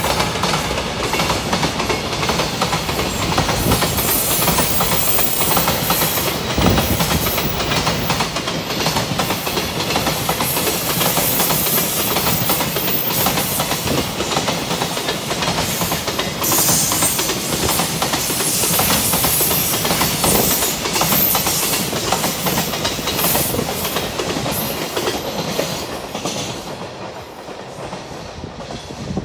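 Electric-hauled container freight train rolling past close by, its flat wagons loaded with JRF containers and their wheels clattering over the rail joints. The sound fades near the end as the last wagons go by.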